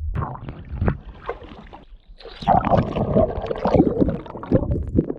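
Water splashing and knocking against a kayak hull as a hooked fish is brought alongside, with the splashing loudest and busiest in the second half.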